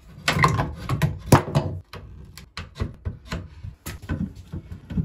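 Flat metal pry bar levering a nailed wooden cabinet board off the wall: a quick cluster of knocks and scrapes of metal on wood in the first two seconds, the loudest about a second and a half in, then single knocks every half second or so.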